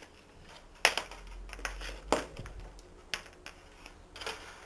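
Stiff craft wire being handled on a wooden worktable: four sharp, short clicks and taps spread over a few seconds, with faint rustling between them.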